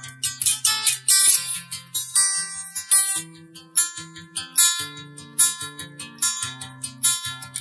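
Background music: plucked and strummed acoustic guitar playing a quick run of notes.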